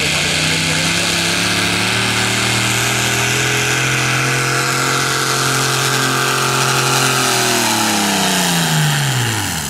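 Modified pulling truck's engine running at full throttle while dragging a weight-transfer sled, holding a steady high pitch. It winds down in pitch over the last two seconds as the pull ends.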